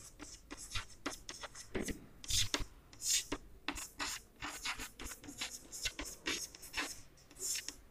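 Chalk writing on a chalkboard: a run of short, irregular taps and scrapes as letters are stroked out, with a few longer scratchy strokes.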